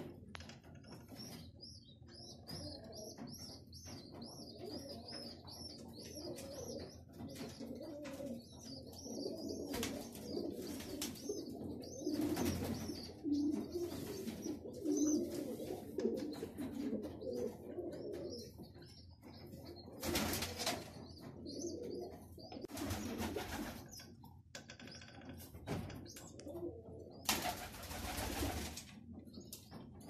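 Domestic pigeons cooing continuously, with a high twittering bird call over the first third. Several short bursts of rustling noise break in during the second half.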